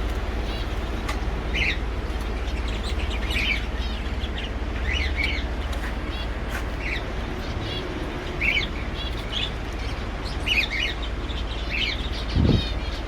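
Small cage birds chirping in short repeated calls, over a steady low rumble, with a single low thump near the end.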